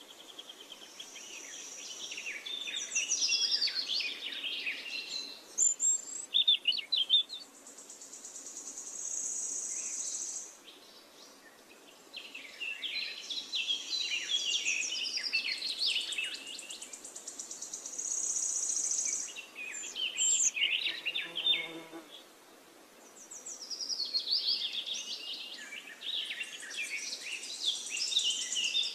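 Birdsong: bouts of quick, high chirps and trills, broken by short pauses roughly every ten seconds.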